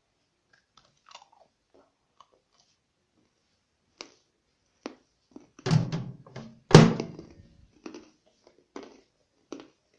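Biting into and chewing a dry, crunchy homemade bread crouton toasted in the microwave. There are a few faint crackles, then two loud crunching bites about six and seven seconds in, followed by smaller chewing crunches.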